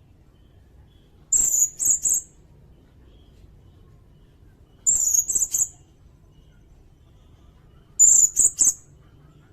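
Sirindet bird calling: three very high, thin phrases about three seconds apart, each a longer note followed by two quick short ones.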